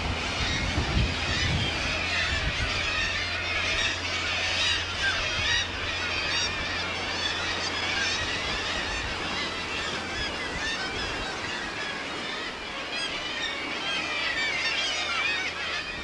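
A crowded colony of gulls screaming, many calls overlapping without a break, over a steady low hum.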